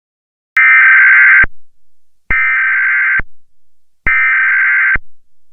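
Emergency Alert System SAME digital data bursts, the raspy two-tone warble of the alert code, sent three times with short pauses between. These bursts are the machine-readable code that marks an EAS alert message.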